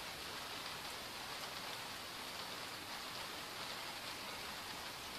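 Steady hiss of rain falling, an even wash of noise with no single impacts standing out.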